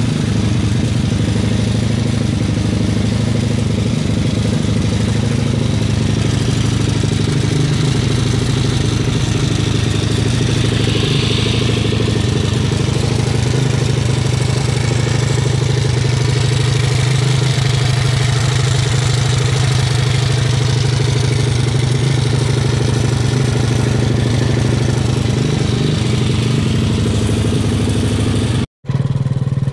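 Small four-stroke engine of a motorized beer-crate kart idling steadily on a stand, being run to warm the oil for an oil change after a head gasket replacement. The sound cuts out briefly near the end, then resumes.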